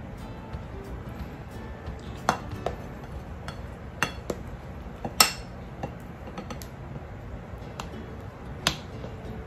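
Metal serving spoon clinking and scraping against a glass trifle bowl and a plate as trifle is scooped out and served: scattered sharp clinks, the loudest about five seconds in.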